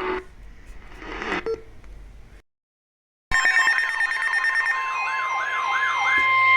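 Emergency alert tones: a steady, high alert tone with a siren-like tone wailing quickly up and down beneath it. It starts abruptly after about a second of dead silence, and the earlier audio fades out before the silence.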